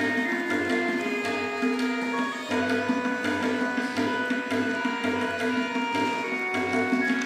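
Tabla solo: quick, dense strokes on the right-hand drum, with repeated deep, ringing bass strokes from the left-hand drum, over a steady melodic accompaniment.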